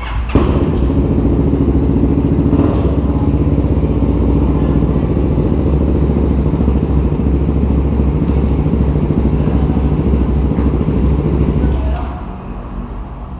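CF Moto 300SR's single-cylinder engine running loudly and steadily for about twelve seconds, then dropping away.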